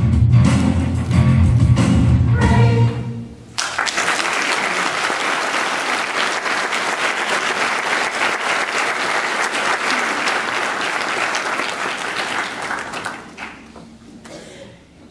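A choir sings the last bars of its song and cuts off about three and a half seconds in. The audience then applauds in a steady crackle that fades away near the end.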